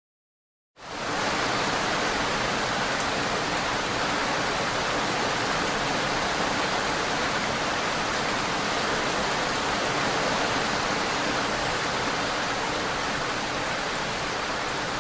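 Steady rain ambience: an even, unbroken hiss of heavy rain that fades in quickly about a second in.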